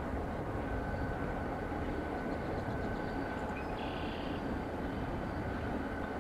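Burlington Northern diesel locomotives moving through a freight yard, heard at a distance as a steady low noise.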